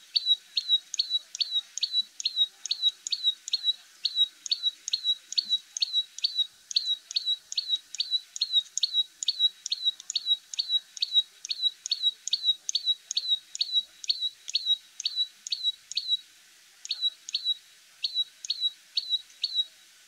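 Common tailorbird calling: a long, fast run of short, sharp high notes, about two or three a second. There is a brief pause about 16 seconds in, then a few more notes before it stops near the end.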